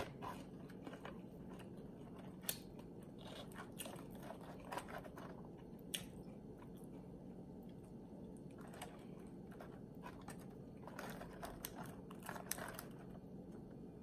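Close-miked mouth-closed chewing of loaded tortilla-chip nachos: quiet chewing with scattered crisp crunches of the chips, in clusters through the first half and again toward the end.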